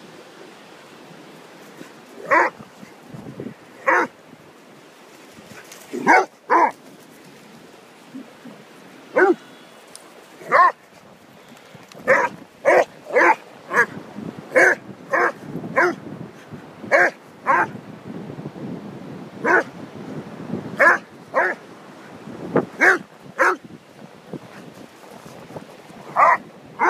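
A dog barking in play: about twenty short, sharp barks, some alone and some in quick runs of two or three, over a steady background rush.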